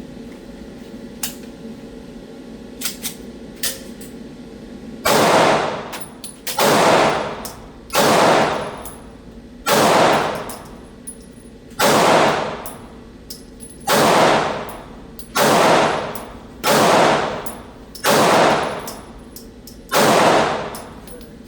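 SIG P365 XMACRO 9mm pistol firing ten shots at a steady pace, about one every one and a half to two seconds, each with a short ringing tail. A few faint clicks come before the first shot.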